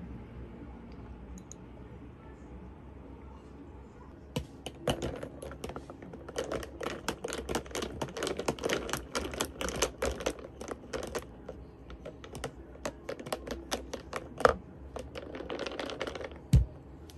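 Ice cubes clinking rapidly against the sides of a clear tumbler of iced coffee as it is stirred: a quick run of sharp clinks starting about four seconds in. Near the end comes a single low thump as the tumbler is set down.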